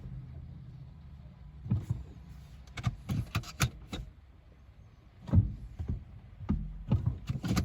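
Irregular sharp clicks and knocks: a quick cluster about three seconds in, then a few more spaced out towards the end.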